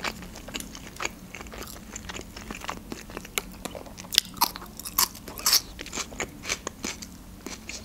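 Close-miked eating: chewing with irregular sharp crunches and wet mouth clicks, as raw onion ring and grilled meat are bitten and chewed.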